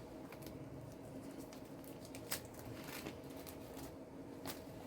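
Faint rustling and a few light ticks of old paper postcards being handled and leafed through, over a low steady room hum.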